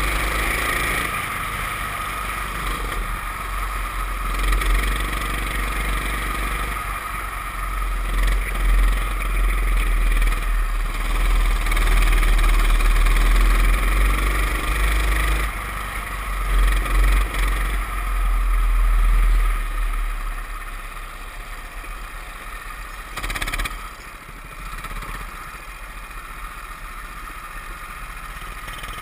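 Go-kart engine running hard on track, heard from onboard, with wind buffeting the microphone; it drops noticeably quieter about twenty seconds in as the kart slows.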